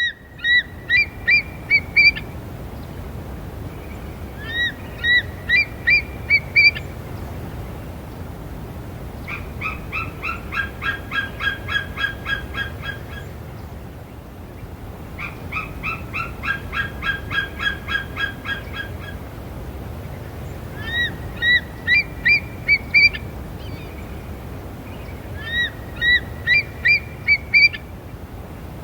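Eagle calling in six bouts of high, piping chirps. Four bouts are short runs of six or seven quick notes, each opening with a swooping note; two are longer runs of about fifteen evenly spaced notes.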